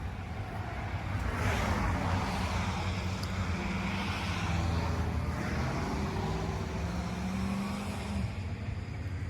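A car being driven at highway speed, heard from inside: a steady low engine and road rumble with tyre noise, the hiss swelling for a few seconds in the middle.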